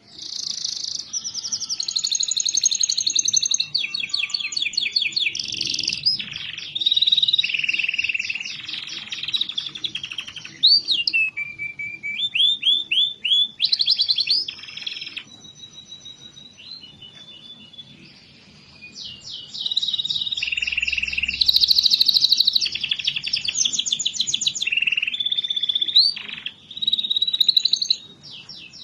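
Domestic canary singing a long, varied song of fast trills and rolls, broken by short pauses, with a quieter stretch about halfway through. This is the kind of song played to prompt a reluctant canary to sing.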